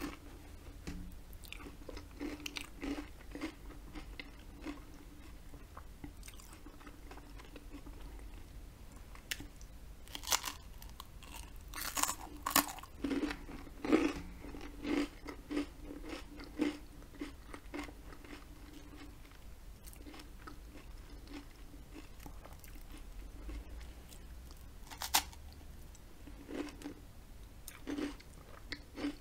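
Close-up chewing and crunching of buttered toast with jam: irregular crisp crunches and mouth sounds, with a run of louder crunches around the middle and another sharp one later on.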